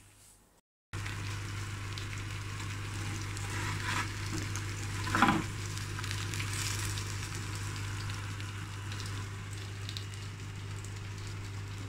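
Indian mackerel pieces sizzling steadily in a little olive oil on a flat pan, starting about a second in, over a low steady hum. A brief louder scrape comes about five seconds in as a spatula lifts fish from the pan.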